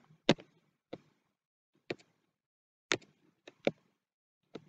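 About seven sharp, irregularly spaced clicks of a stylus tapping on a tablet while handwriting.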